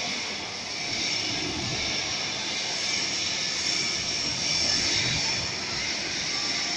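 Steady hissing machine noise from automated welding equipment running, with a low rumble underneath and small swells in level but no distinct clicks or beats.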